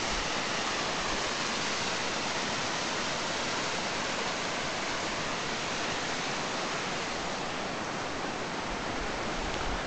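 Steady, even rush of hot-spring water cascading down a rock face.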